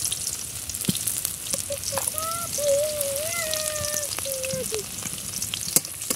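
Crushed garlic frying in hot oil in a metal kadai: a steady sizzling hiss with scattered sharp pops. A wavering pitched tone rises over it for about three seconds in the middle.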